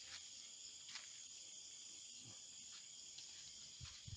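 Faint, steady chorus of crickets and other night insects, a continuous high-pitched hum, with two soft low thumps near the end.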